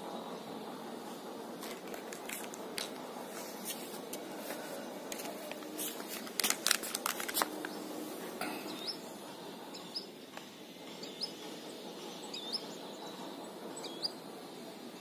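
Steady outdoor background noise, with a run of clicks and rustles that is loudest about halfway through, then half a dozen faint, short rising chirps.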